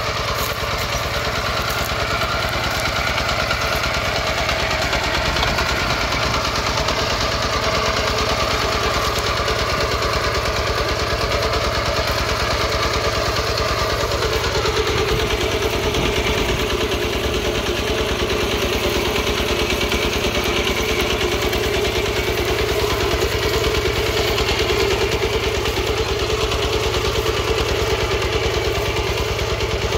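Kubota two-wheel hand tractor's single-cylinder diesel engine running steadily under load with a rapid, even chugging beat while its tine cuts through the soil.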